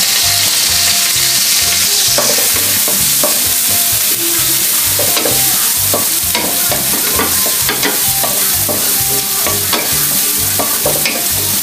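Chopped garlic and ginger sizzling in hot oil in a wok, stirred with a wooden spatula that clicks and scrapes against the pan.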